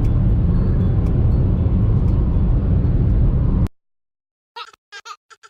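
Steady low rumbling noise that cuts off abruptly about two-thirds of the way through, followed by silence and a few short snatches of a voice near the end.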